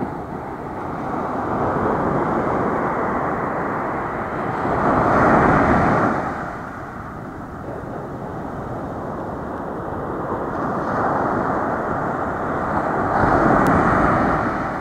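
Ocean surf: low waves breaking and washing up a sandy beach in a steady rush, swelling to two louder crashes, one about five seconds in and one near the end.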